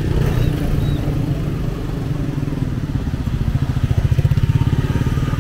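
Motorbike engine running with a fast, even pulsing, swelling to its loudest about four seconds in, over street traffic.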